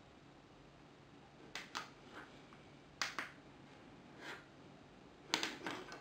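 Small clicks and taps from hands handling an Arduino Uno board, its USB cable and a USB power bank, in small groups of two or three, the sharpest about three seconds in and near the end.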